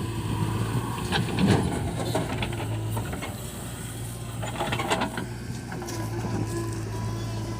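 Diesel engine of heavy earth-moving machinery running steadily, with clusters of metallic clanks and rattles about a second in and again near five seconds in.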